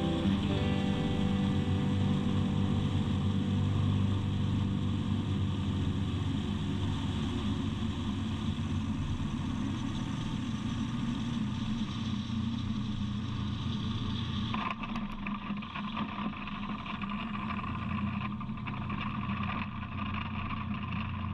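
Rans S7 light aircraft's engine and propeller running steadily with wind rushing past, throttled back for landing. About fifteen seconds in, the hissing wind noise drops off abruptly.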